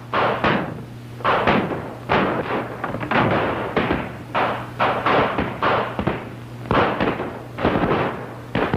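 A rapid run of loud bangs and crashes, roughly two a second, with a slight pause about two thirds of the way through.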